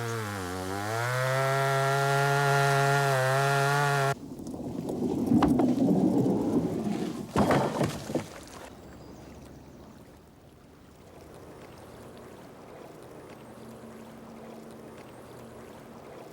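Chainsaw cutting oak, its engine note dropping as the chain bites into the wood and climbing again; it cuts off abruptly about four seconds in. A few seconds of rumbling with a couple of sharp knocks follow, then the sound dies down to a quiet background.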